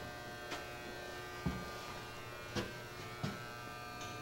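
A steady electrical hum or buzz made of many fixed tones, with four faint, short knocks about a second apart.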